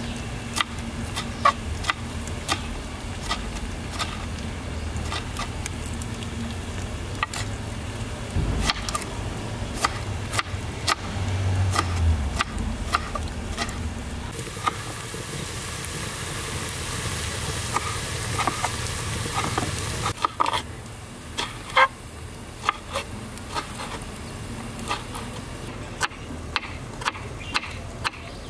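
Large kitchen knife chopping tomatoes on a wooden cutting board: irregular knocks of the blade striking the board, settling into a more even chopping rhythm near the end as the tomato is minced fine. A low steady hum runs underneath.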